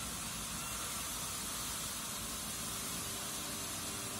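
Band sawmill machinery running steadily without cutting: an even hiss with a faint hum beneath.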